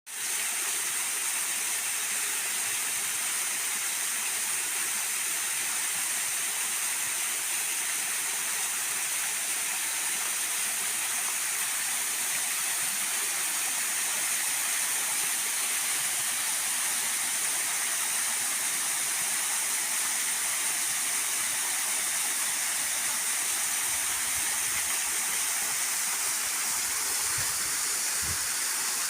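Waterfall: falling water rushing in a steady, even hiss without breaks.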